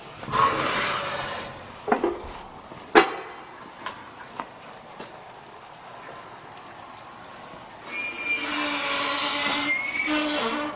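Rain falling and dripping, heard as a steady crackle of small ticks, with two sharp knocks about two and three seconds in. For the last few seconds a louder rushing hiss rises over it, carrying a faint steady whine.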